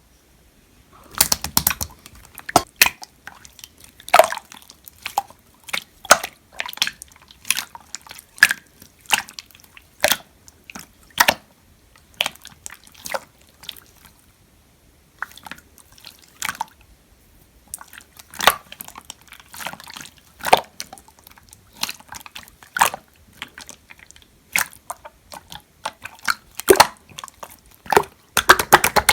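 Clear slime being squished and pressed by hand, giving irregular wet pops and clicks, a few a second, with a short pause about halfway.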